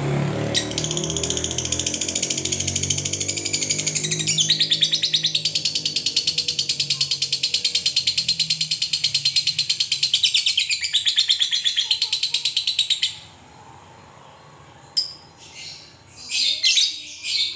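Fischer's lovebird giving a long ngekek: a rapid, unbroken chattering trill of sharp high notes that lasts about twelve seconds and cuts off suddenly, followed near the end by a few short chirps. A low hum sits underneath for the first few seconds.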